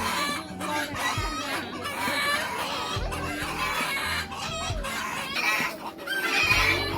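A flock of chickens clucking, with roosters crowing among them, over background music with deep thuds every second or two.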